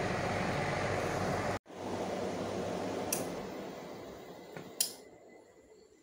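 Split AC indoor unit's blower fan running with a steady rush of air. After a cut, the air noise fades away over a few seconds as the blower is switched off, with two sharp clicks.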